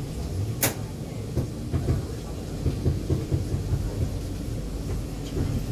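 Inside an E2 class tram on the move: a steady low rumble from the wheels on the rails and the running gear, with scattered knocks and one sharp click about half a second in.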